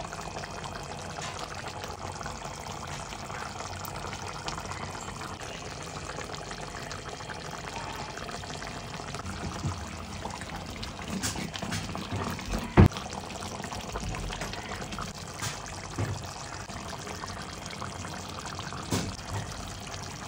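Fish curry gravy bubbling as it simmers in a pan, a steady wet bubbling hiss. A few light clicks and one sharp knock a little past halfway.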